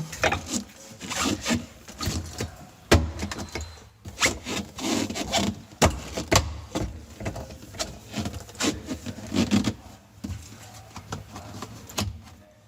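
Plastic interior back panel of a refrigerator being worked into place over the evaporator fan: rubbing and scraping against the liner, with a string of sharp clicks and knocks as its side clips snap in.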